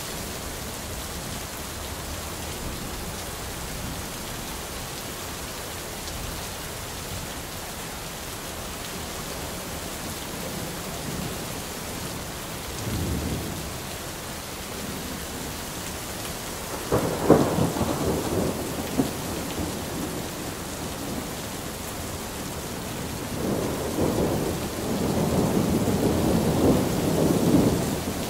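Thunderstorm: steady rain falling throughout, with thunder. A faint rumble comes a little before halfway, a sudden loud clap a little past halfway dies away over about two seconds, and a longer rumble builds and fades near the end.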